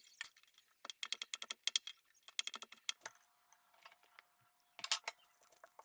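Quick, light clicks and taps in clusters, as of food and utensils being handled while wraps are assembled. A faint steady hum joins about halfway through.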